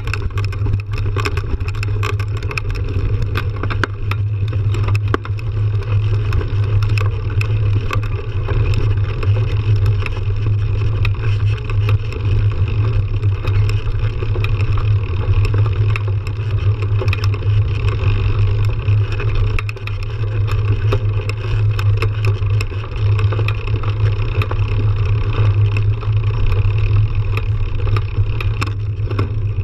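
Mountain bike ridden fast down a dirt trail, heard from a camera mounted on the bike: steady rushing wind and tyre rumble on the dirt, with frequent clicks and rattles from the bike over bumps.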